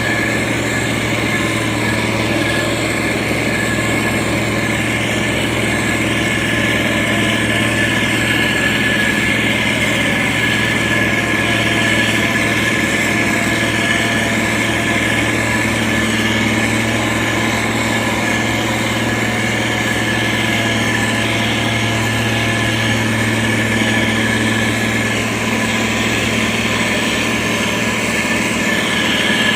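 Heavy road-construction machine's engine running steadily, a constant low drone with a steady high whine over it.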